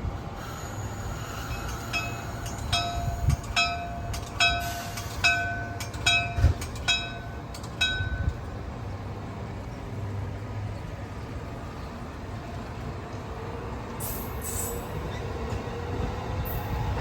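A train moving through a station: a steady rumble with a run of about a dozen sharp, ringing metallic clanks at uneven intervals over the first half, then two short hisses near the end.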